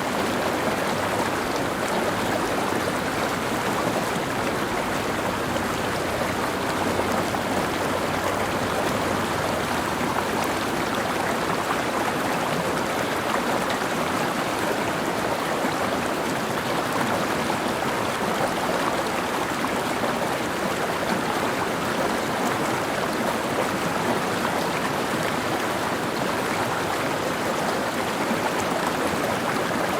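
Mountain stream flowing over rocks: a steady, even rush of water with no breaks.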